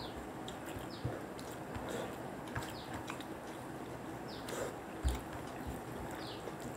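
Close-up eating sounds: chewing, lip smacks and the wet squish of fingers mixing rice and curry on a plate, with a soft thump about five seconds in. A few short, high, falling chirps come through faintly.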